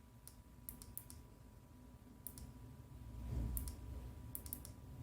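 Small push-button switch of a penlight clicking about a dozen times in quick groups of two to four, as it is pressed to cycle through its light modes.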